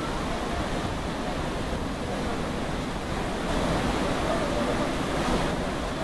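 Athirapilly Falls: a large waterfall's heavy flow of water plunging over rock, a steady, unbroken rush of noise.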